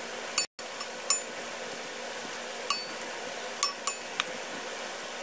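A steel spoon clinks sharply against the frying pan and plate about six times while egg potato balls are lifted out of the oil. Under the clinks runs the steady hiss of deep-frying oil bubbling.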